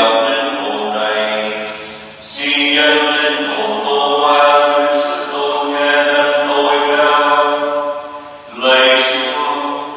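Slow unaccompanied sung chant in long held notes, with a new phrase starting about two seconds in and another near the end.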